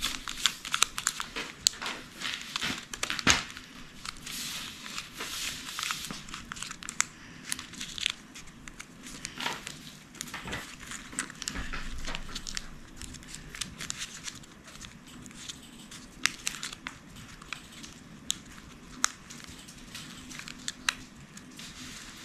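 Coloured origami paper crinkling and rustling as it is folded and creased by hand, with many small sharp crackles, busiest in the first several seconds and sparser later.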